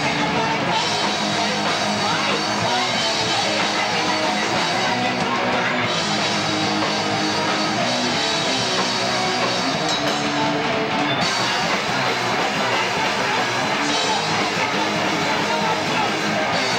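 Live rock band playing loud, heavy music with guitars and a drum kit, steady and unbroken.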